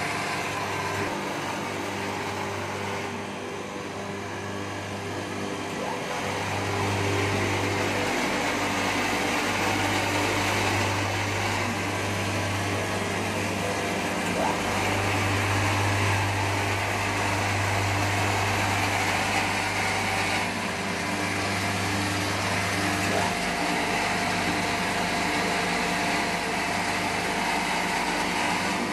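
Transformer oil filtration machine running, its electric motors and pumps giving a steady low hum under a whirring mechanical noise as it filters transformer oil.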